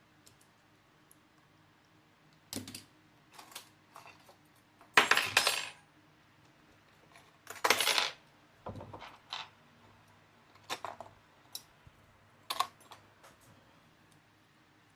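Small metal parts and tools clinking and rattling on a work surface during laptop disassembly: scattered clicks and taps, with two longer clattering rattles about five and eight seconds in.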